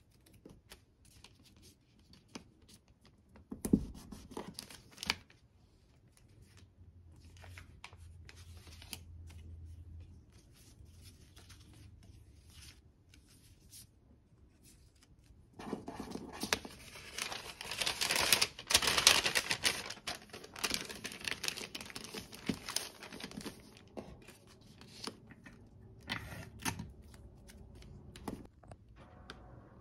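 Paper being handled while small orders are packed: kraft-paper envelopes, cards and stickers rustling and crinkling, with light taps on the table. A short rustle comes about four seconds in, then a longer, louder stretch of crinkling from about halfway, easing to scattered ticks near the end.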